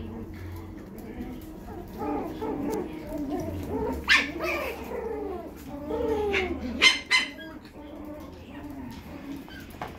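Chihuahua and toy poodle puppies whining and squeaking in play, their high cries sliding up and down, with a few sharp yaps about four seconds in and again near seven seconds.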